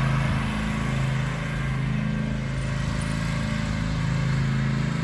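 Riding lawn mower engine running steadily as it tows a barrel train across the lawn, with an even, low engine hum and no change in speed.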